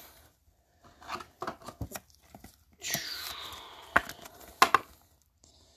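Plastic card sleeve rustling with a few soft ticks, then a trading card in its soft sleeve sliding into a rigid plastic top loader with a scraping hiss that falls in pitch about three seconds in, followed by a few sharp plastic clicks.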